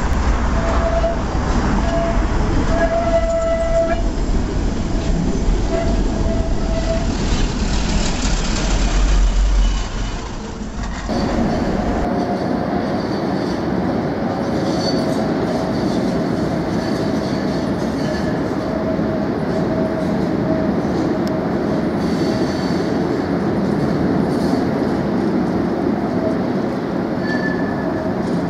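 Budapest tram rolling slowly around tight curves at a tunnel mouth, its wheels rumbling over the rails with thin, steady squeals at several pitches. About eleven seconds in the sound changes abruptly to a second recording of another tram on the curves, still squealing.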